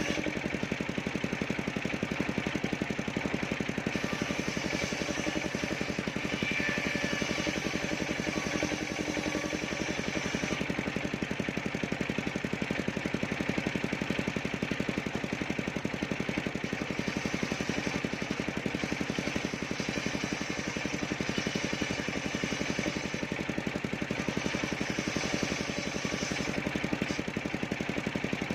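Engine-driven mobile circular sawmill running steadily, its engine and spinning blade at an even pitch throughout.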